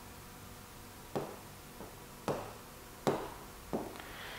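Stylus tapping on the glass of an interactive touchscreen whiteboard: several sharp taps, less than a second apart, each with a short room echo.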